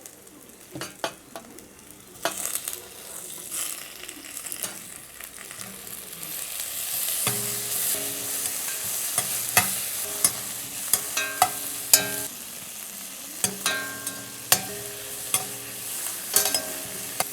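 Chopped onion, green chillies, curry leaves and freshly added tomato sizzling in hot oil in a kadai while a spoon stirs them. The spoon knocks against the pan in sharp clicks throughout. The sizzle grows louder a couple of seconds in.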